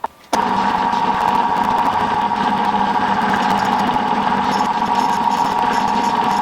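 Milling machine running steadily with a constant whine, drilling a block of EN3 steel; the sound drops out briefly right at the start.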